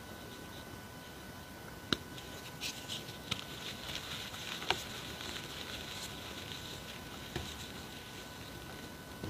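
Gym chalk being crushed and squeezed by hand, the compressed reforms and loose powder giving soft crunching and rustling. A few sharp crackles stand out, and the crunching is busiest in the middle.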